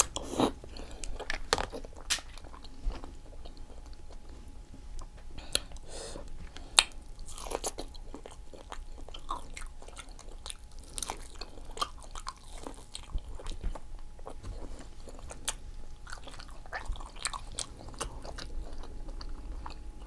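Close-miked eating of a seafood boil: chewing and biting, with many irregular sharp clicks and wet smacks.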